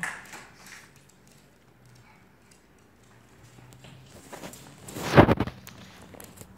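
Light clicking and pattering of a small puppy's paws on a laminate wood floor, then about five seconds in a single brief, loud rustling scrape.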